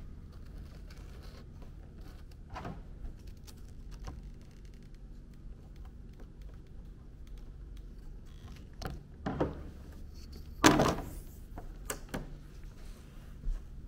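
Faint scraping and ticking of a blade cutting a rabbit-fur hide along a steel ruler on a table, over a low steady hum. A few louder clicks come near the end, and the loudest sound is a short metallic clatter as the ruler is lifted and set down.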